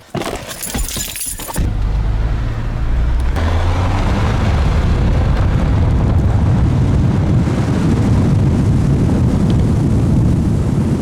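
Car running, a steady low engine and road rumble that steps up sharply about a second and a half in and grows again a couple of seconds later, after a brief rattling clatter at the start.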